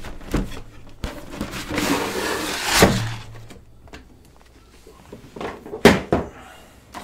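A clear plastic packaging tray sliding out of a cardboard box with a long scraping rustle, then a few knocks and clicks of handled plastic.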